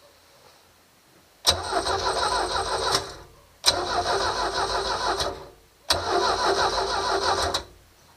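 MerCruiser 3.0L four-cylinder inboard engine being cranked over by its starter three times, each burst about a second and a half long with a sharp start, without the engine running on: cranking after a new distributor cap, rotor, points and condenser have been fitted.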